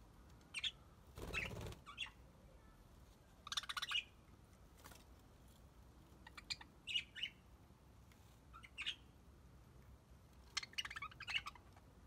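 Budgerigars in an aviary chirping: short, high chirps and warbles from several birds, coming in scattered bursts and busiest near the end. There is one brief duller noise about a second in.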